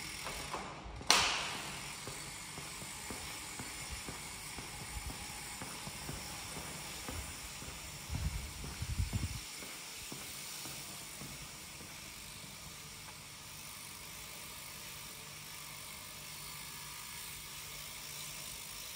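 Quiet ambience of a concrete parking garage with a faint steady hiss. There is one sharp clack about a second in, and a short spell of low rumbling knocks around eight to nine seconds.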